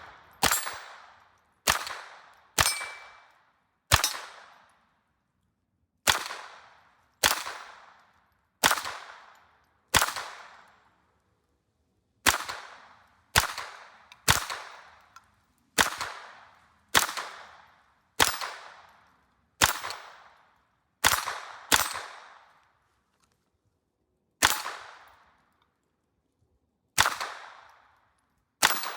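AR-15 pistol converted to .22 LR with a CMMG conversion kit, fired shot by shot at an unhurried, uneven pace: about two dozen sharp cracks, each fading in a short echo, with longer gaps now and then.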